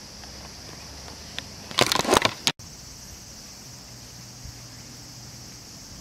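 Steady high-pitched drone of insects, broken about two seconds in by a brief burst of loud close rattling and clattering that cuts off abruptly.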